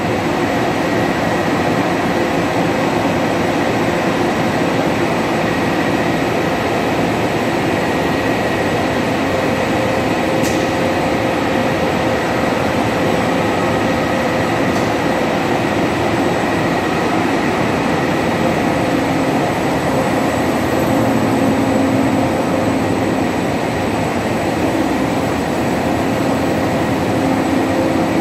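BOBST printing press running steadily: a loud, even mechanical din with faint steady whines in it.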